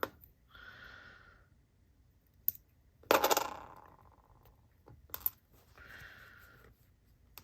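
Small metal parts clinking on a hard surface: a light click, then a sharp metallic clink about three seconds in that rings briefly, and two quick lighter clicks a couple of seconds later, as magnets and metal fidget pieces are handled.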